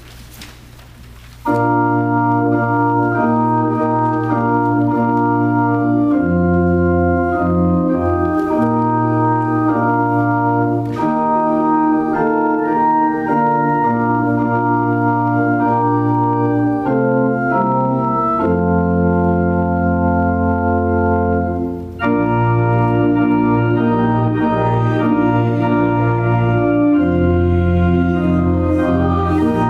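Organ playing a hymn: sustained chords over a moving bass line, starting about a second and a half in. After a brief break about three-quarters of the way through, it comes back brighter, with more high notes.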